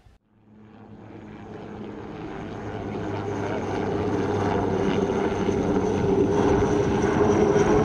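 Diesel engine of a DEMU (diesel-electric multiple unit) train accelerating, a steady drone growing louder over several seconds as the train approaches.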